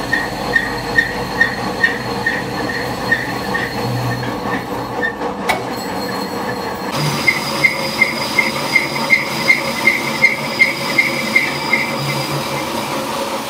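Lathe cutting inside a steel hydraulic cylinder barrel with a carbide-tipped boring bar: a steady machine hum under short, even squeaks from the cut, two to three a second. There is a single click about halfway through, after which the squeaks come a little faster and higher.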